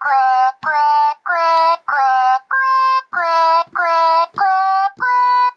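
Morinaga's singing programming Kyoro-chan toy can singing a home-composed tune in its synthesized chirpy voice, one "kue" per note. The notes come about two a second at an even tempo, with the pitch stepping up and down from note to note.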